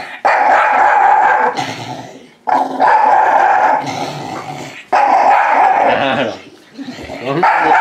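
Shiba Inu growling and crying out in protest while being handled into a winter vest: four long, loud growling cries, each a second or two long, the last starting near the end.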